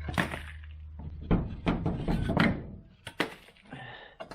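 Hard thunks and knocks of a jack and plywood blocking being set under a car: a cluster of impacts about a second and a half in and two more near three seconds, over a low steady hum that stops after about a second.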